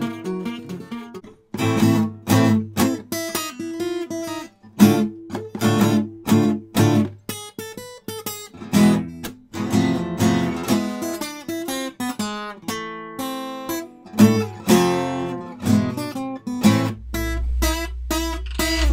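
Acoustic guitar music, plucked notes and strums in a steady run with a couple of brief gaps. Near the end a low steady rumble comes in under it.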